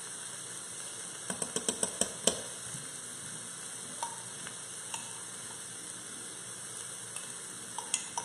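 Butter sizzling steadily in an Instant Pot on its sauté setting, with a quick run of sharp clicks and scrapes about a second in and a few single ticks later, from a spoon scraping ghee out of a nearly empty jar.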